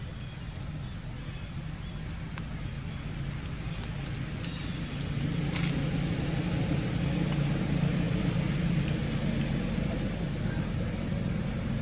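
A motor vehicle's engine hum, growing louder about halfway through and easing near the end as it passes. Short high chirps recur every second or two, with a few light clicks.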